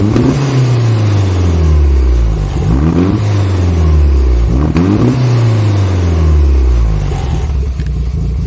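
Nissan A14 1.4-litre four-cylinder engine revved in about three quick throttle blips, each rising fast and falling slowly back, settling to a steady idle near the end, while its ignition timing is being set.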